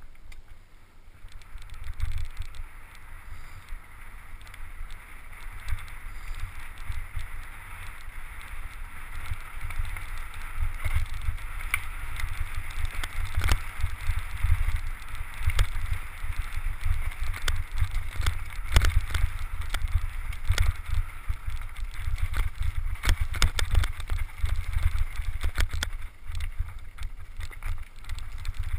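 Mountain bike ridden fast down a dirt forest trail: wind buffeting the camera microphone, with tyre noise and a steady scatter of clicks and knocks as the bike rattles over roots and bumps. It grows louder over the first half as speed picks up.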